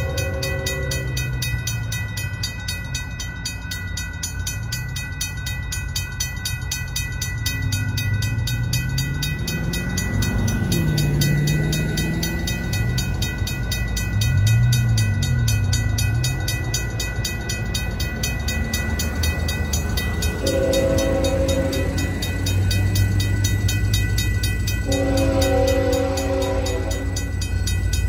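Railroad crossing bell ringing rapidly and steadily as the flashing-light signal activates and the gates come down. About twenty seconds in, the horn of the approaching BNSF GE ET44C4 locomotive sounds a shorter blast, then a longer one near the end: the grade-crossing signal of a train coming up to the crossing.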